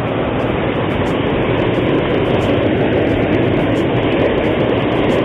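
Steady rushing noise of river water pouring over a low weir, growing a little louder about two seconds in.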